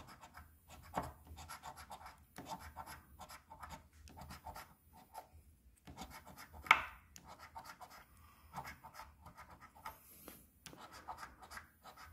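A metal coin scratching the coating off a paper scratch-off lottery ticket in quick, short strokes, with a brief pause about halfway through.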